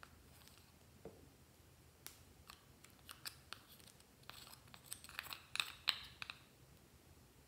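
Metal spatula scraping soft purple makeup out of a small plastic pot: faint, scattered scrapes and clicks, busiest from about four to six seconds in.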